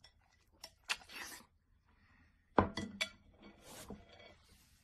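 A person eating noodles with chopsticks from a ceramic bowl: short hissy slurps and a few clinks of chopsticks on the bowl. The loudest sound is a knock with a brief ring about two and a half seconds in.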